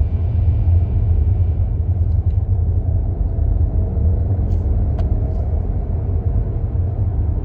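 Car on the move with a steady low rumble of road and engine noise. A faint buzzing tone comes in about three seconds in, the buzz that the owner hears when the car decelerates. A single sharp tick about five seconds in.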